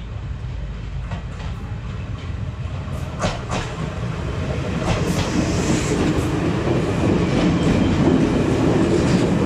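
Diesel multiple unit passenger train approaching and running past close by, its rumble growing steadily louder. From about three seconds in, its wheels click over the rail joints.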